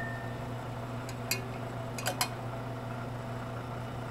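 Copper wire coil being lowered into a glass beaker of liquid, with a few faint light clicks of the wire against the glass about a second and two seconds in, over a steady low hum. This is the start of the silver cementation on copper.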